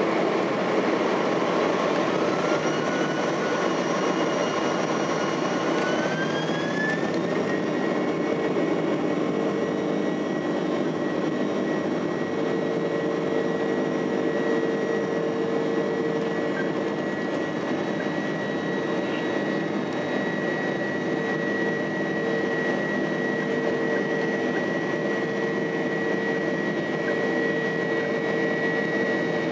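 Boeing 767-300 jet engines heard from inside the cabin. About two seconds in, an engine whine rises in pitch over several seconds as the engines spool up, then holds as a steady high tone over a constant cabin rumble.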